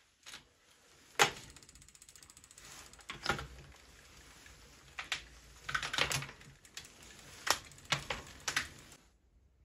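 Sharp, irregular mechanical clicks over a faint fast ticking, from a bicycle's SRAM Spectro S7 seven-speed internal gear hub and its clickbox shift mechanism.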